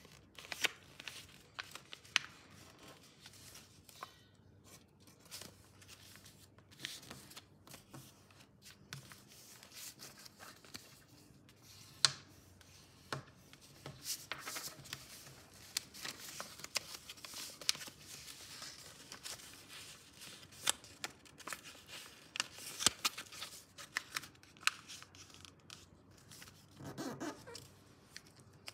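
A sheet of paper being folded and creased by hand on a table: crisp rustling and crinkling with scattered sharp clicks as the folds are pressed down, and one louder snap about twelve seconds in.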